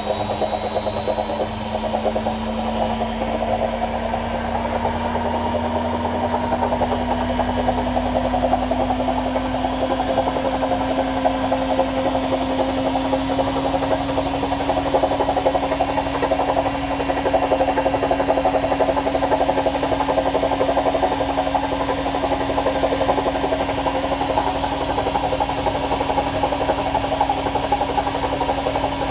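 AEG washing machine running with a continuous fast rattle, its motor whine climbing slowly in pitch over the first half and then holding steady as the drum speeds up.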